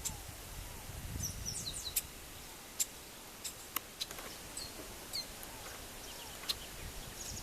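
Chestnut-capped blackbirds calling: scattered short, sharp, high chip notes, with a few quick downward-slurred notes about a second in.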